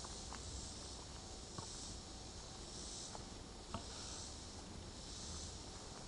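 A chorus of summer insects, a steady high buzz that swells and fades every second or so. A few light ticks sound against it, the clearest about four seconds in.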